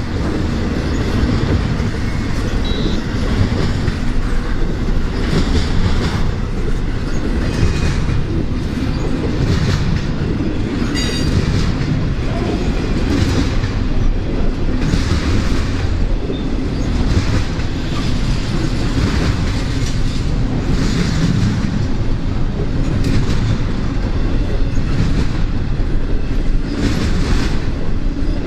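A freight train's cars rolling past, a steady loud rumble with the steel wheels clattering on the rails.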